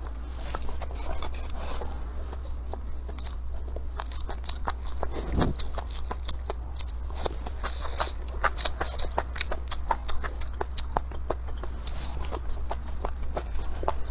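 Close-up eating sounds: wet chewing, lip smacks and clicks as mouthfuls of rice and braised velvet antler mushrooms are eaten. A steady low hum runs underneath.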